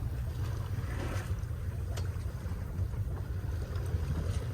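Steady low rumble aboard a fishing boat, with a faint click about two seconds in.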